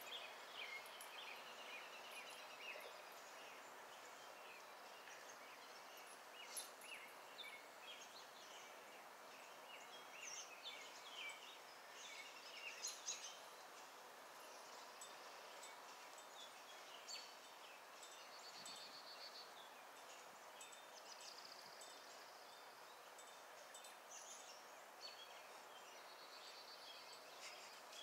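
Quiet backyard ambience: faint birdsong, many short chirps and trills, over a steady soft hiss.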